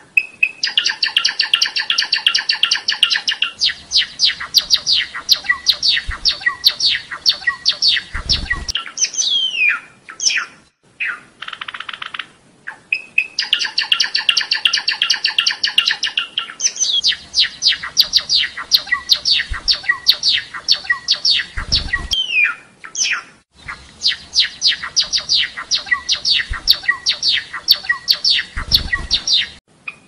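Java sparrow song: long runs of rapid, high chipping notes, several a second, broken by short pauses twice, with a buzzy stretch after the first pause. A dull low thump comes near the end of each run.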